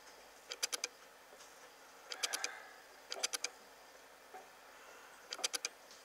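Metal spurs jingling: four short clusters of quick, bright metallic clicks spaced a second or two apart, over a faint hiss.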